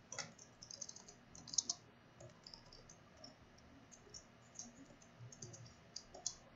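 Typing on a computer keyboard: quick, irregular runs of light key clicks with short pauses between them, a few strikes louder than the rest.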